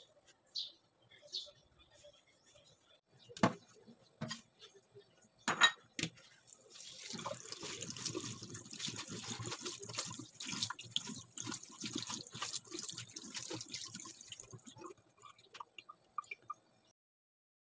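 Tap water running onto leaves in a mesh strainer and splashing into a stainless steel sink for about eight seconds, then a few drips as it stops. Before the water starts, a few sharp knocks and clatters of handling.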